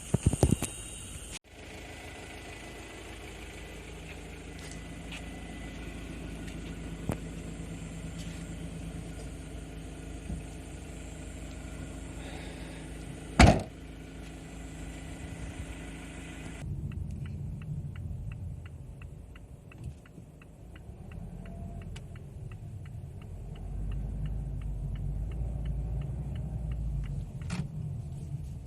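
A motor vehicle running with a steady engine hum, and one sharp loud click partway through. Later the sound changes to a low rumble with a fast, even ticking.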